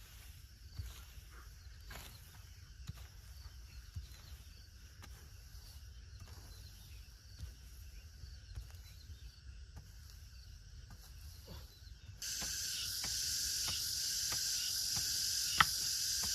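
Low wind rumble with scattered faint ticks. About twelve seconds in, a loud, steady insect chorus starts abruptly, with two sharp knocks near the end.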